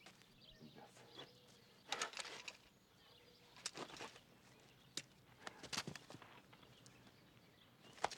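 Quiet outdoor ambience with a few faint, brief rustles and scuffs, spaced a second or two apart, and light bird chirps.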